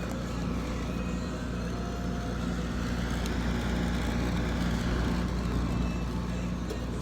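Frigidaire 12,000 BTU window air conditioner running with its compressor on: a steady low hum under the fan's airflow noise.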